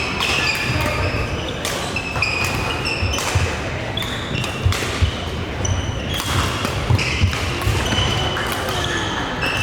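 Sports shoes squeaking on a hall court floor during a singles rally: many short, high squeaks, with sharp hits and dull footfall thuds mixed in.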